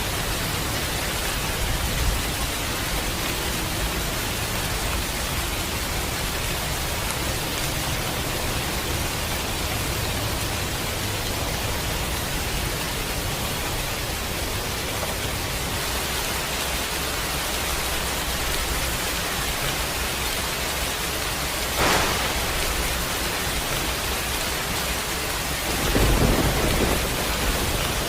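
Steady heavy rain with thunder rumbling low underneath. A sharp crack of thunder comes about 22 seconds in, and a louder, longer thunderclap near the end.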